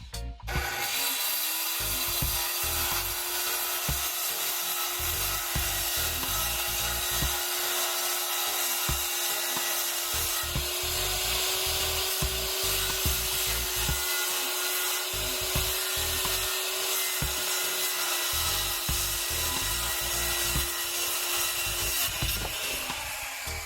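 Electric power tool working wood, running steadily with a constant motor whine for about twenty seconds before stopping near the end.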